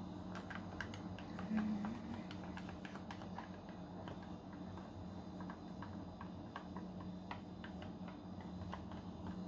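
Spatula scraping and tapping against a glass bowl in light, irregular clicks, over a steady low hum. A short louder low tone comes about one and a half seconds in.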